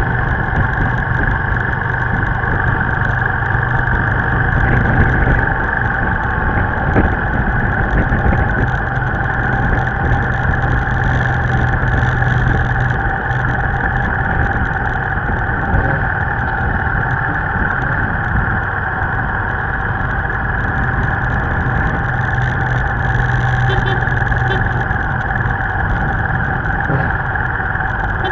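Motorbike engine running steadily at cruising speed, with steady road and wind noise.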